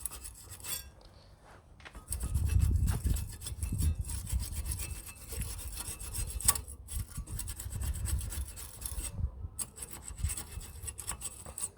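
Steel wire brush scrubbing rust off a car's front brake caliper carrier and pad hardware, in rapid back-and-forth rasping strokes. It is lighter for the first couple of seconds, then harder, with a couple of brief pauses.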